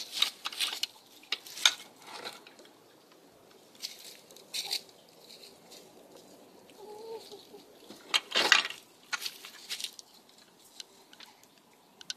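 Chickens clucking quietly, with crunching steps through dry leaves, the loudest crunch about eight seconds in.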